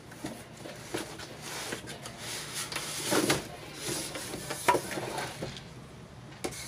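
A cardboard TV box being handled and opened: flaps scraping and rustling, and foam packing blocks rubbing and knocking as a flat-screen TV is slid out. Irregular scrapes and knocks, loudest about three seconds in.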